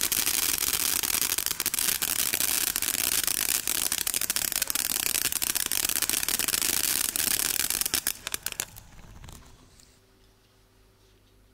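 16 mm Chinese firework fountain burning with a steady hiss and dense, rapid crackling of bursting stars, thinning to a few last crackles about eight seconds in and dying out. Then faint room tone with a low hum.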